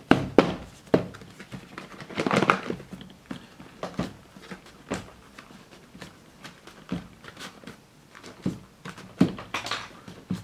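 A stiff cardboard product box being worked open by hand: scattered clicks and knocks of the packaging, with a longer scraping, crinkling rustle about two seconds in.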